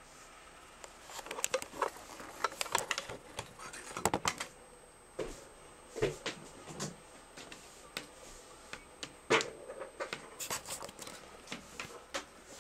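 Irregular handling noises: short clicks, taps and plastic crinkles in several uneven clusters, the loudest about four and about nine seconds in, as the sewing machine is handled on bubble wrap.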